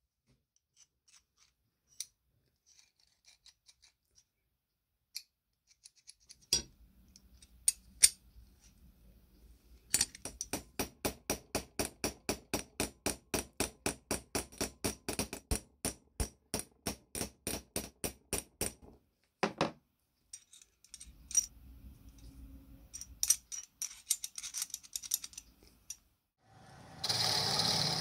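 Steel hammer tapping a steel punch on a metal part held over an anvil: a steady run of light, evenly spaced strikes, about four a second for roughly nine seconds, with scattered metal clinks before it. Near the end a lathe starts running.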